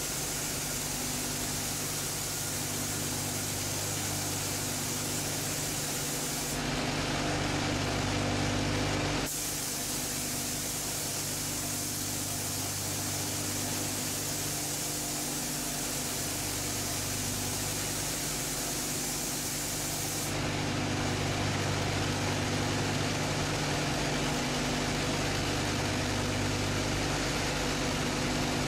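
Steady hiss of air over a machine hum in a car paint booth during spray painting. It gets a little louder from about seven to nine seconds in, and again from about twenty seconds on.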